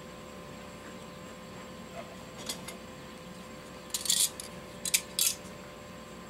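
Kitchen utensils clinking and scraping against dishes a few times in short clatters, mostly in the second half, over a steady low hum.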